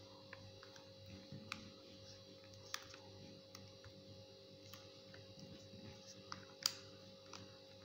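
Pen tracing around a paper pattern onto skai faux leather: faint scratching and scattered light clicks, one sharper click near the end, over a steady faint hum.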